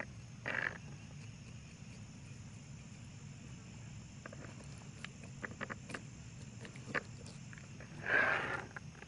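A camp knife cutting along a channel catfish's spine, with faint clicks and scrapes of the blade. A short, louder rasp about half a second in, and the loudest one near the end.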